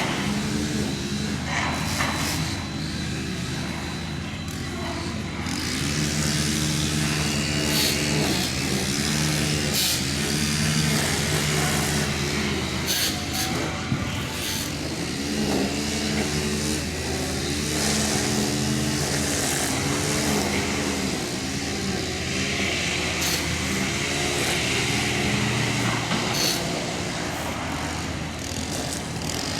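Large demolition excavator's diesel engine rising and falling in pitch over and over as its hydraulics work under load, with occasional sharp clanks.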